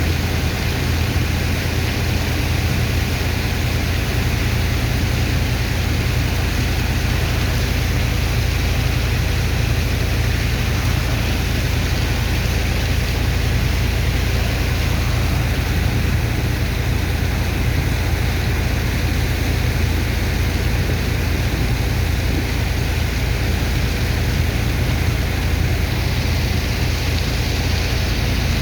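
Heavy engine of a sand dredger's unloading pump running steadily, with a constant rushing noise over a deep low drone.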